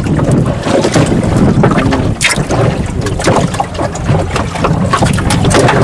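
Wind buffeting the microphone on an open fishing boat: a loud, uneven low rumble, with scattered short knocks, the sharpest about two seconds in.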